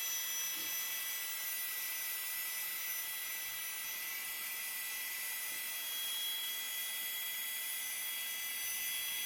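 Flextail Gear mini USB air pump running steadily, a high electric whine with an airy hiss, as it inflates a sleeping mat.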